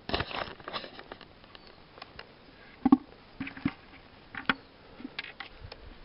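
Handling noise close to the microphone: a cluster of rustles and clicks at the start, then scattered sharp knocks, the loudest about three seconds in, as hands work a freshly cut mushroom and the camera is moved.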